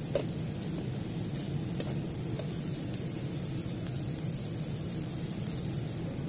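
Nasi goreng sizzling in a hot wok, a steady crackling hiss, with a spatula tossing it and one sharp knock just after the start.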